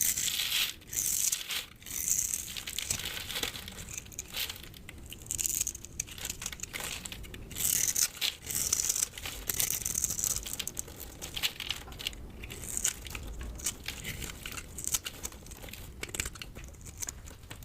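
Soap being crushed and broken up by hand close to the microphone: a continuous run of crisp, irregular crackling and crumbling bursts.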